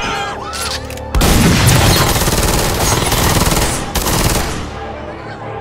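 Uzi submachine gun firing long full-auto bursts. The rapid shots start about a second in, break briefly near four seconds, then die away.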